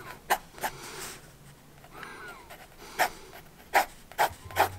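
Pencil sketching on a notebook page: short scratchy strokes, most of them in the second half. Between them is a person's loud breathing.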